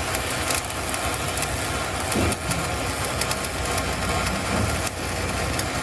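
An engine running steadily at idle, with scattered clicks and knocks over it.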